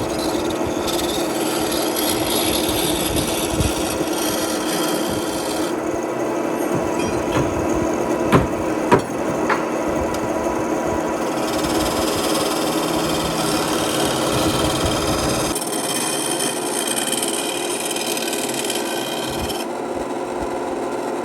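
An electric power tool running steadily while abrading wood, its motor hum under a rough, rasping scrape whose tone shifts several times. Three sharp knocks come a little past the middle.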